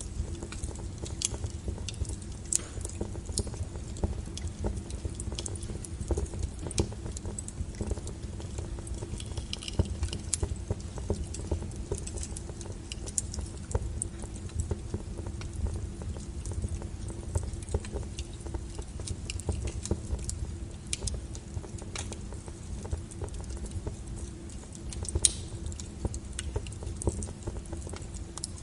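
Wood fire burning: irregular sharp crackles and pops over a steady low rumble of flames, with one louder pop near the end.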